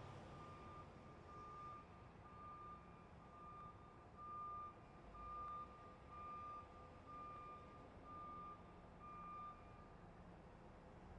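Faint truck reversing alarm: one steady high beep repeated a little more than once a second, over a low traffic rumble, stopping shortly before the end.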